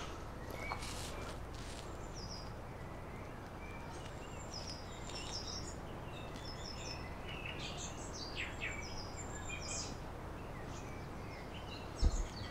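Small birds chirping and twittering on and off over a steady low outdoor rumble. A brief low thump comes near the end.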